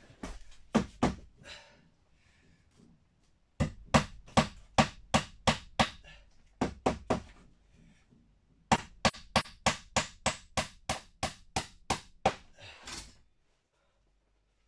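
Hand hammer striking wood in quick runs of blows, about three a second, with short pauses between the runs.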